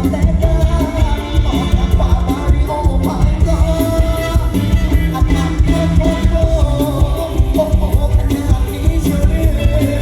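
Loud live mor lam band music, with a steady driving beat and a held, wavering melody line that is likely a singer's voice.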